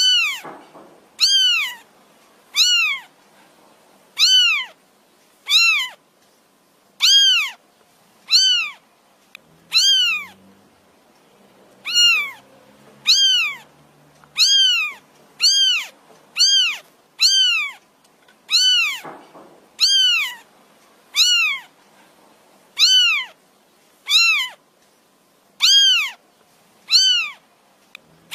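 A kitten meowing over and over, about one high-pitched call every second and a half, each call rising and then falling in pitch: the isolation call of a kitten looking for its mother.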